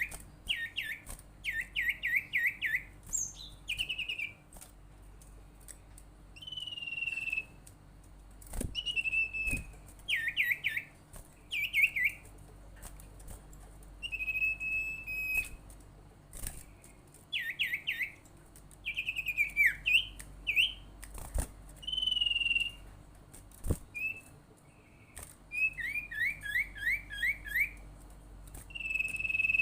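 Sirtu, a kind of cipow (iora), singing a calling song: bursts of four to six quick downward-slurred whistles alternate with longer held whistles, with short pauses between phrases. A few sharp clicks sound in between.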